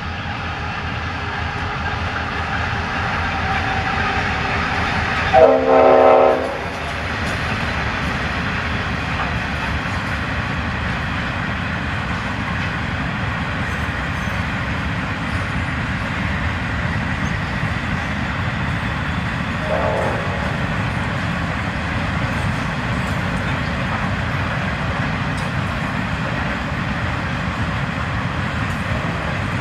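Diesel-hauled freight train passing: the locomotives' engines running and the hopper wagons rolling along the track, with a loud two-part locomotive horn blast about five seconds in and a short, fainter horn toot about twenty seconds in. After the horn, steady rumble and clatter from the wagons.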